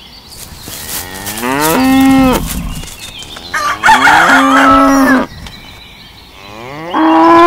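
Cow mooing: three long moos, each sliding up in pitch and then held steady, the last starting near the end.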